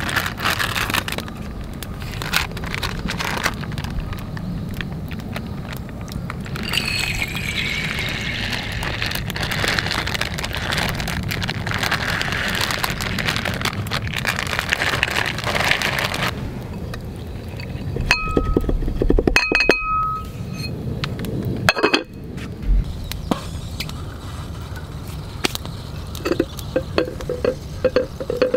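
Rice and water poured from a plastic bag into a donabe clay pot, a hissing pour lasting several seconds, then sharp clinks of the ceramic pot and lid with a brief ringing tone as the lid goes on.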